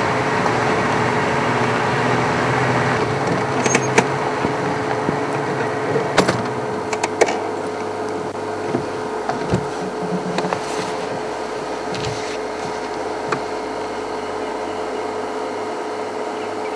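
Game-drive vehicle's engine idling as a low hum that stops about seven seconds in, leaving a steady hiss with a faint steady tone. A few sharp clicks come between about four and seven seconds in.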